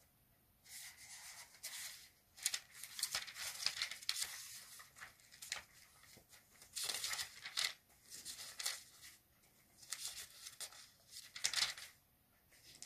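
Pages of a Bible being leafed through, in irregular bursts of papery rustling with short pauses between them.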